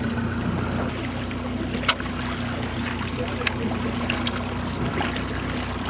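Boat engine running steadily, a constant hum, with a few sharp clicks over it, the loudest about two seconds in.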